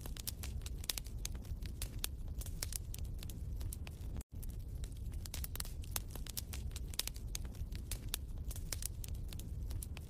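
Wood fire crackling in a fireplace: dense, irregular pops and snaps over a low steady rumble, with a split-second dropout to silence about four seconds in.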